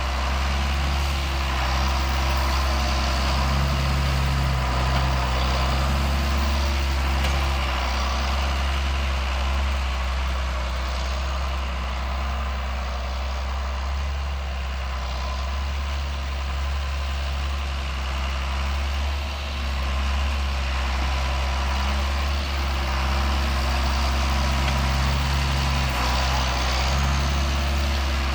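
John Deere 7610 tractor's six-cylinder diesel engine running steadily, swelling slightly a few times as it works.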